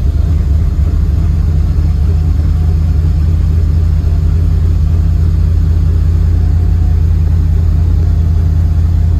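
Small-block Chevy V8 with Holley Sniper throttle-body fuel injection idling steadily at a raised cold-start idle of about 1,200 rpm, still warming up.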